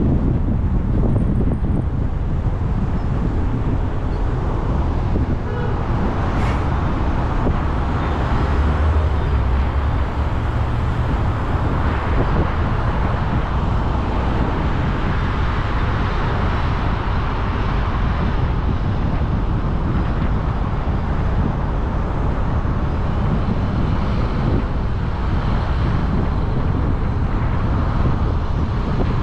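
Steady road noise from a car driving on city roads: tyre and wind noise over a constant low rumble.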